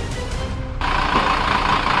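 Background music, cut off suddenly less than a second in by a heavy vehicle's engine running loudly and steadily.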